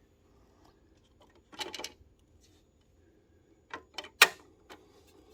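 Sharp clicks and taps of the LED light and its plastic backing plate being handled and test-fitted. A short cluster comes about a second and a half in, then a run of clicks around four seconds, the loudest just after four seconds.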